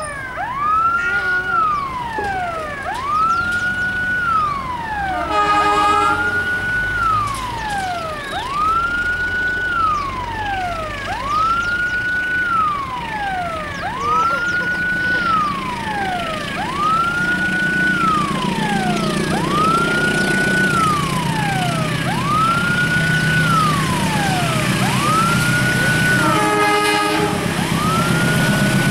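An electronic siren wailing throughout, each cycle rising quickly to a high note and sliding down, about every three seconds. A diesel locomotive sounds two short horn blasts, about five seconds in and near the end, while the low rumble of its engine grows louder as it approaches.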